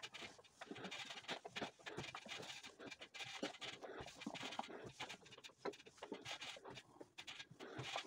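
Philips steam iron sliding back and forth over a cotton towel on an ironing board: faint swishing and rubbing of fabric with scattered light scrapes and clicks.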